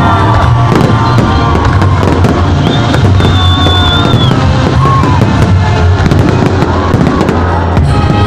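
Fireworks going off in many rapid bangs and crackles, mixed with loud music that has a steady low bass.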